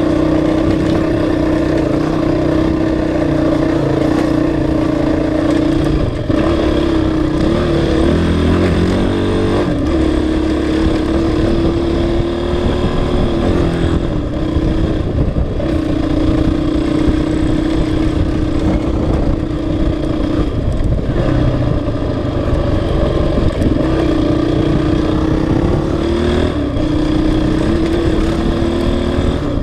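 Honda CRF450X dirt bike's single-cylinder four-stroke engine running while the bike is ridden. Its pitch drops and climbs again several times as the throttle is eased off and reopened.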